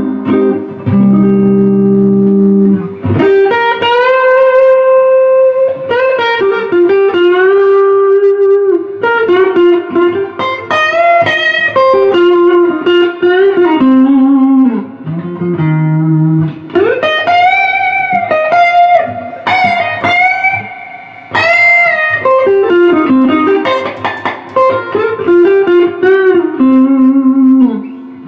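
Electric guitar played through a 1966 Fender Princeton Reverb tube amp: a lead line of single notes with some chords, with long sustained notes, several of them held with vibrato.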